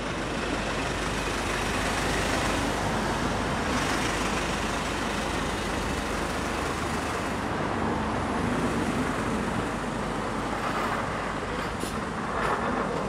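Busy city-street traffic: a steady rumble of car and bus engines and tyres passing on the road.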